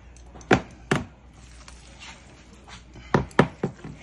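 Five sharp knocks of hard kitchen things striking each other: two spaced about half a second apart near the start, then three in quick succession about three seconds in.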